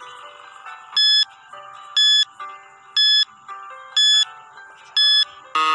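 Countdown timer sound effect: five short, high beeps once a second over soft background music, then a louder, lower buzz near the end as the time runs out.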